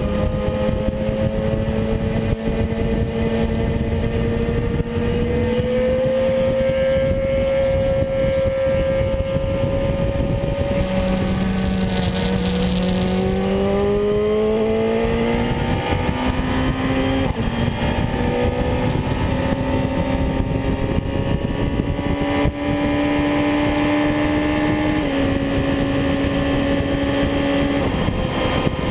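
BMW S 1000RR's inline-four engine running at road speed under a steady rush of wind on the microphone. Its note holds steady, drops about ten seconds in and then climbs as the bike pulls, with a few more shifts in pitch later.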